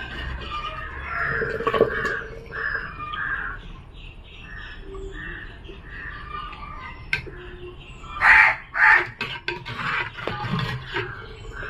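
Crows cawing in a run of short repeated calls, then two louder harsh caws about eight seconds in.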